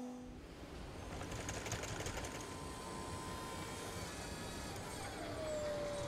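A small machine mechanism running with a fast, fine clatter, joined about five seconds in by a motor whine that slides slightly down in pitch.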